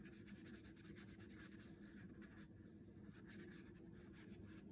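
Faint brushing and scratching of a small watercolor brush on paper, many quick strokes in a row, over a low steady room hum.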